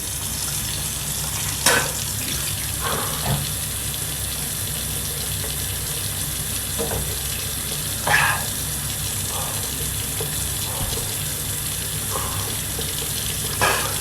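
Water running steadily from a tap, coming on at the start, with a few short, sharp sounds over it.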